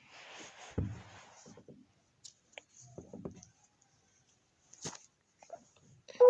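Faint rustling and handling noises, with a low thump about a second in and a few scattered clicks. A loud steady tone starts right at the end.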